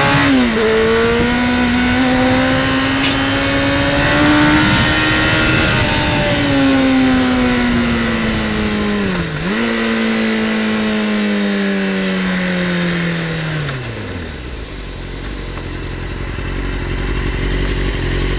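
Sport motorcycle engine heard from the rider's seat. It rises in pitch after a quick gear change just after the start, then falls steadily as the rider rolls off, with another brief dip about halfway. For the last few seconds it settles to a low rumble.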